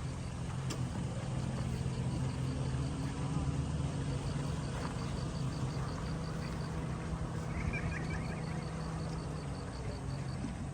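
A steady low engine hum, like an engine idling, with a faint, fast, even ticking above it that stops and starts.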